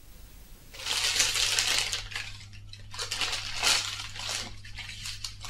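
Snack packaging crinkling and items being set down on a kitchen counter, in irregular bursts starting about a second in, over a low steady hum.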